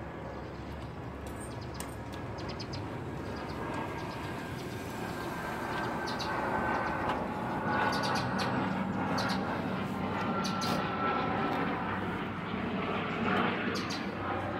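Passing vehicle noise: a steady sound that grows slowly louder, strongest in the second half, with a faint high whine and scattered light clicks.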